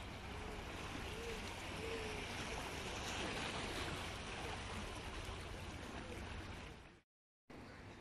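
Black Sea water washing against the shoreline rocks, a steady rush with a low rumble underneath; the sound cuts out for about half a second near the end.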